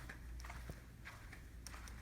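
Faint, irregular footsteps and small handling clicks from someone walking a hallway with a handheld camera, over a steady low hum.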